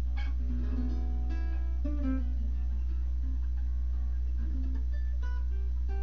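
A guitar played by hand: a strummed chord right at the start, then single plucked notes that ring and fade, sparser in the second half. Under it runs a loud, steady low electrical hum.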